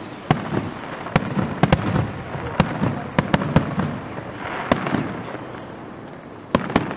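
Aerial fireworks shells bursting, heard as a series of sharp, irregular bangs. There is a quick cluster about three seconds in, a quieter stretch after it, then two bangs close together near the end.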